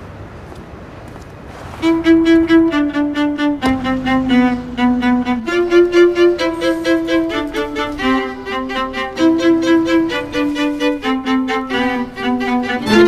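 Background music: a bowed string melody in held notes that comes in about two seconds in, after a faint hush.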